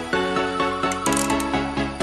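Electronic intro music with quick, evenly spaced notes.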